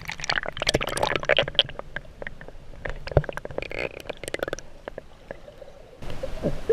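Water splashing and sloshing irregularly around a person moving in shallow water.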